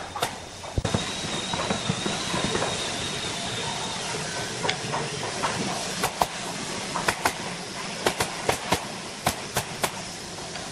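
Nail gun firing nails into the wooden slats of a cable reel: sharp shots in quick pairs and runs of three or four, after a few seconds of steady hiss.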